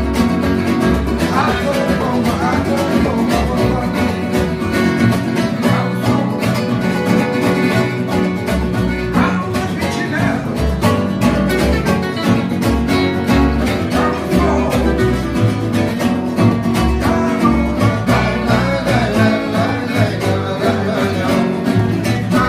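Gypsy jazz band playing: several acoustic guitars strumming and picking over a plucked upright double bass.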